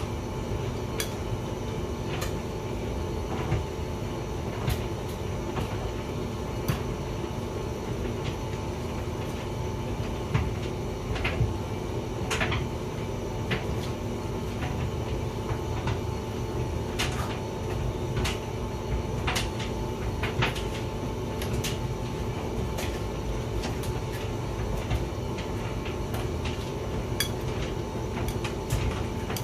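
Hotpoint vented tumble dryer running: a steady low rumble and motor hum from the turning drum, with irregular light clicks and knocks throughout.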